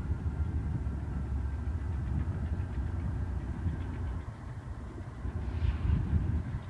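Diesel-electric locomotives of a Union Pacific freight train running as the train approaches slowly: a steady low engine rumble that eases briefly about four seconds in.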